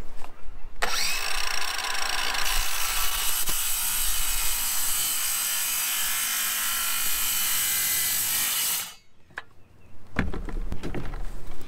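Circular saw spinning up about a second in, then cutting through a composite deck board with a steady high whine. It stops suddenly near the end, and a few light knocks follow.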